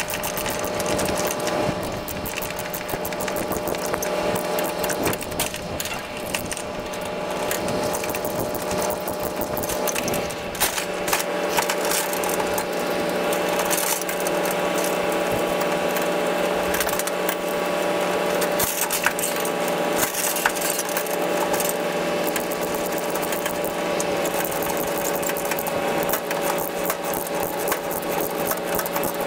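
A steady machine hum with several held tones, under constant rattling and clicking.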